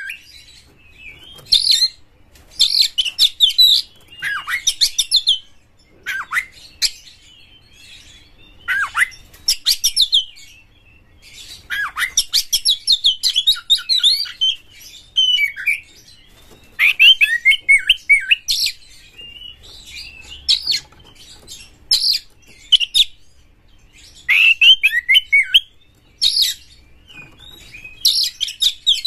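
Male oriental magpie-robin singing a loud, varied song in short phrases with brief pauses between them: rapid chattering trills mixed with high whistles that slide downward.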